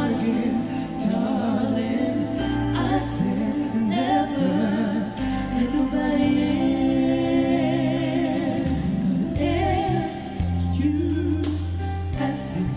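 Live pop ballad duet playing: a female vocalist sings over band accompaniment with sustained bass notes, and a male voice takes the lead near the end.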